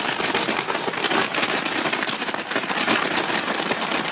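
Fireworks crackling densely and without a break: a steady mass of fine pops and crackles.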